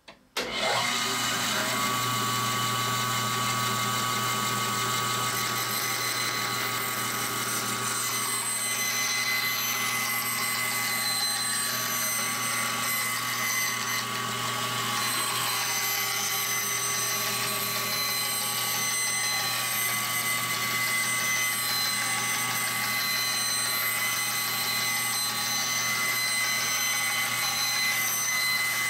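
Band saw switched on about half a second in, its motor and blade then running steadily with a constant hum while a board is fed through the blade in a test rip cut along the fence.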